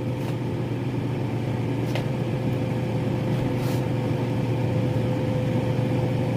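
Steady low mechanical hum, like a running fan or appliance motor, with a thin higher tone over it. A couple of faint light clicks or taps come through, about two seconds in and again near four seconds.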